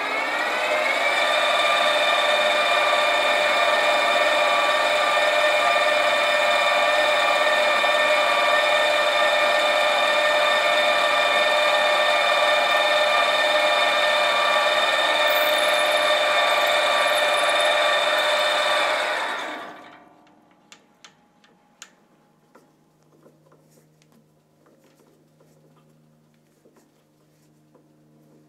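Sieg SC4 mini-lathe spinning up and running at a steady whine while a 3.3 mm stub drill in the tailstock chuck drills the end of hex bar stock, pilot hole for an M4 tap. The motor stops about 19 seconds in, followed by light clicks of handling at the tailstock chuck.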